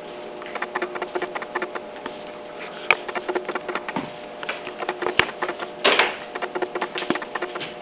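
A baby eating: rapid, irregular clicks and smacks, with a short noisy burst about six seconds in.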